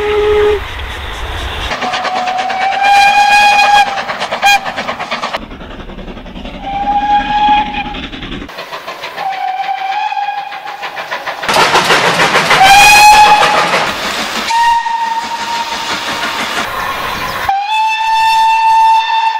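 Steam locomotive whistles from several different British steam engines, spliced one after another. There are about six blasts, each a steady single-note whistle of one to two and a half seconds at a slightly different pitch. Under some of them is the rapid beat of the working locomotive's exhaust and the train running on the rails.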